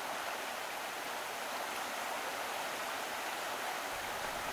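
Steady rushing noise of running water, even throughout with no clicks, splashes or tones.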